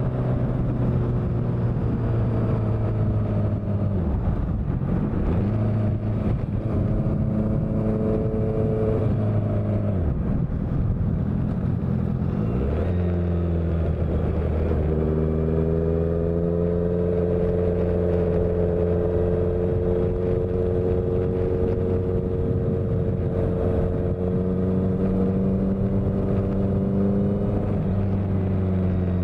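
Honda CBR650F's inline-four engine through a CS Racing exhaust, running steadily under way. The note dips and breaks a few times in the first half, then holds a nearly steady pitch through the second half.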